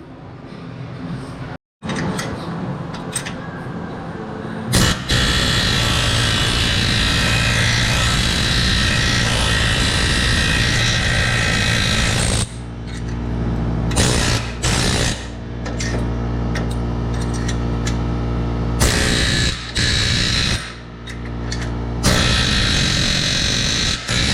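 Hand-held power tool running against steel, working the old welded engine mounts off a truck frame. It starts about five seconds in and runs steadily. About halfway through it changes to a lower, humming sound that stops and restarts several times.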